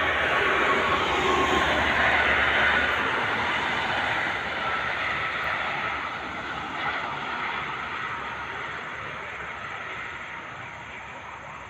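Motorway traffic passing: the rushing noise of tyres and engines, loudest in the first few seconds as vehicles go by, then fading steadily away.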